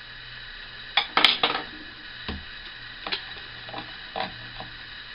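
Metal clinks and taps of a spanner against the brass union fitting of a butane burner's gas line as it is tightened and handled. There is a quick cluster of clinks about a second in, then a few single lighter taps.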